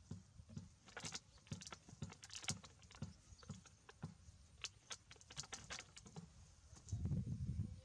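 Irregular light tapping and clicking, a few sharp clicks a second, then a brief low rumble near the end.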